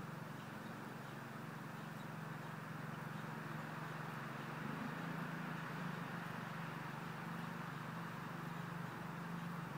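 A steady low motor hum that holds the same pitch, over a faint even background hiss.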